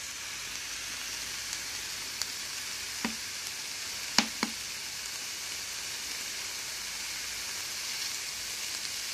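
Chopped onions starting to sizzle in a stainless steel frying pan with a spoon of sunflower oil, a steady hiss, with a few light clicks of a metal spoon against the pan about two to four seconds in.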